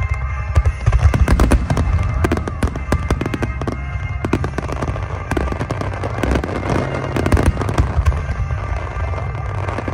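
Aerial fireworks shells bursting in quick succession: many sharp bangs and crackles over a continuous low rumble.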